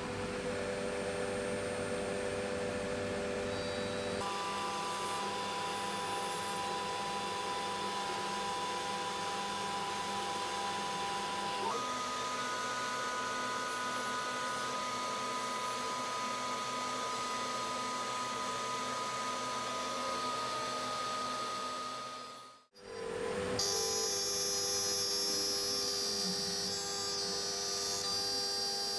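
CNC router spindle running with a small end mill cutting wood: a steady, high whine of several tones. The pitch set changes abruptly twice, and there is a momentary dropout about 23 seconds in, after which the cut resumes with a different whine.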